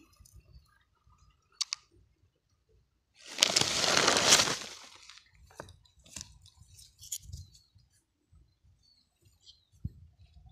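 Light clicks and clinks of metal tongs against a clear plastic collecting cup, with a loud scraping rustle lasting about a second and a half a few seconds in.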